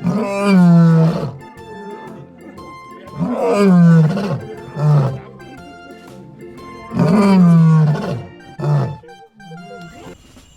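A lion roaring three times, each roar a long call falling in pitch; the second and third are each followed by a short grunt.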